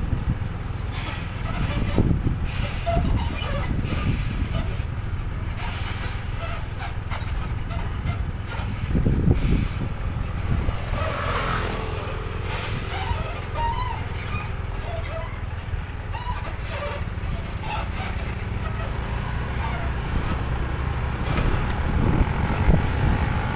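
Road noise of vehicles driving: a steady low rumble of engines and tyres, with brief louder surges about two and nine seconds in and again near the end.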